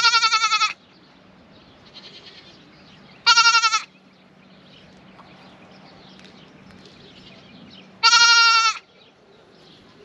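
Young buck goat kid bleating three times, loud quavering calls of about half a second to a second each, spread several seconds apart. He is calling back and forth with an older buck, upset at being newly separated from his mother.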